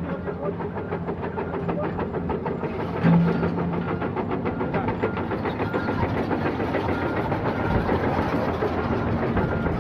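Heavy diesel machinery running steadily with a rapid metallic clatter, most likely the Komatsu 450 excavator's engine. About three seconds in, a short louder low tone rises above it.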